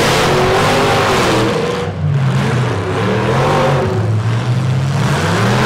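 Demolition derby pickup truck engine revving up and down, with a dense roar of noise underneath and a short lull about two seconds in.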